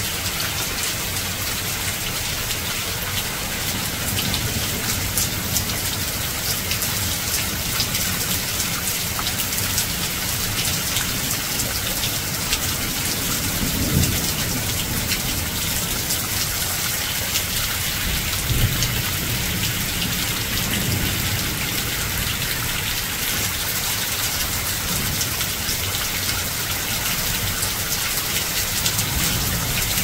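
Waterfall pouring: a steady rush of falling water with a low rumble underneath.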